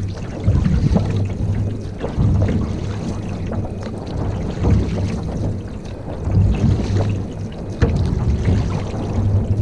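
Canoe under way on the water: splashing and water noise from the hull and paddle, under a heavy, uneven rumble of wind buffeting the microphone.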